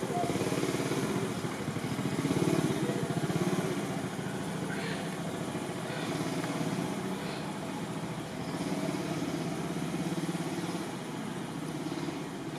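A small engine running steadily, its low pulsing note holding at a constant speed.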